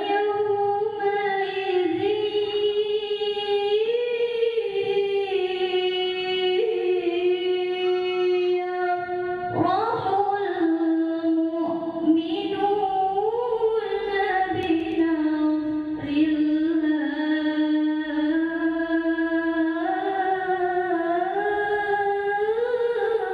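A young girl reciting the Qur'an in the melodic tilawah style: one voice with long held notes that waver through ornaments, pausing for a quick breath about ten seconds in.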